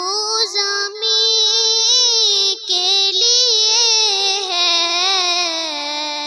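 A girl's solo voice singing a naat, drawing out long wavering notes with a couple of brief breaths between phrases.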